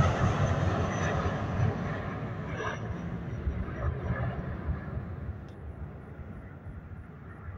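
Jet engines of an Airbus A320 at take-off thrust as the airliner climbs away. The noise fades steadily, losing its high hiss first and leaving a low rumble.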